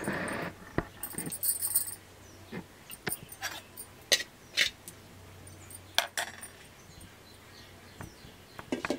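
Stainless-steel cookware clinking: a metal spoon taps and scrapes against steel bowls and a pot lid while boiled green-banana pieces are handled. There is a short noisy rush at the very start, then a series of separate sharp clinks and knocks, the loudest about four and six seconds in.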